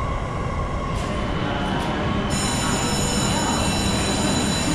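Commuter train at a station platform: a steady rumble, joined about two seconds in by a high-pitched squeal of several steady tones.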